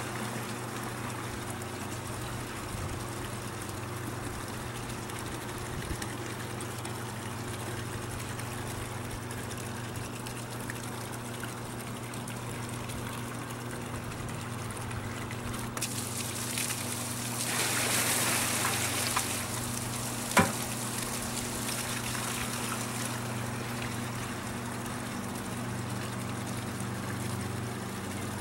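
Water from a pump's discharge hose pouring into a plastic bucket, over the pump's steady low hum. The pouring gets louder for a couple of seconds about two-thirds of the way through, followed by a single sharp knock.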